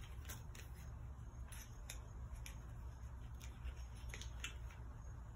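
Scattered light clicks and crinkles of a slim cardboard crochet-hook box being handled and opened, over a low steady hum.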